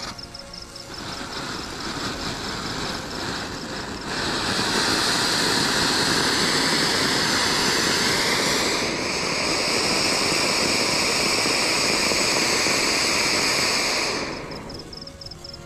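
Flower pot ground fountain firecracker spraying sparks with a loud steady hiss. It builds up over the first few seconds, shifts slightly in tone about nine seconds in, and dies away near the end.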